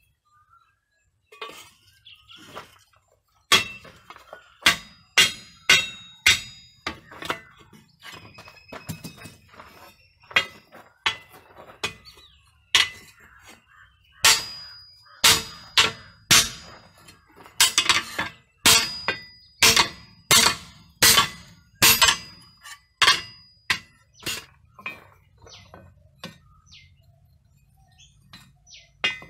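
Hand hammer blows on red-hot steel for an axe head, laid on a length of railway rail used as an anvil: a run of sharp strikes, about one or two a second, each with a short bright metallic ring. The blows start a few seconds in, are heaviest in the middle, and turn to lighter taps near the end.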